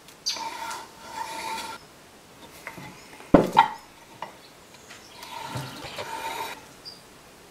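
Pencil scratching lines along a square onto white oak, in two strokes of over a second each, with a sharp knock between them a little over three seconds in.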